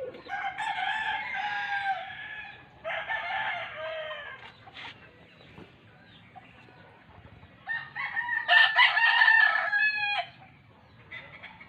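Rooster crowing three times, the last crow the loudest, about eight seconds in.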